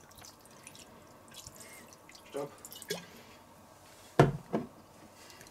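Red wine poured from a glass bottle, splashing and dripping faintly onto meat in a cast-iron Dutch oven. Two short, louder sounds come a little after four seconds in.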